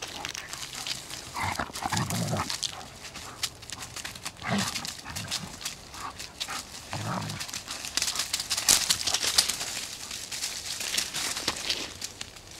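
Two dogs play-fighting: a few short, low growls over the rustling and crackling of dry leaves and soil under their feet.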